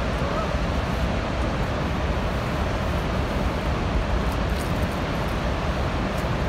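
Steady roar of Niagara Falls: an even, unbroken rush of falling water, heaviest in the low end.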